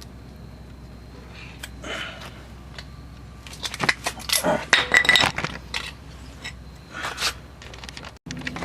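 Metal clinking and scraping as car parts and tools are handled, with a dense cluster of clinks about four to five seconds in and a few more later: the brake caliper assembly, just unbolted, is being set aside.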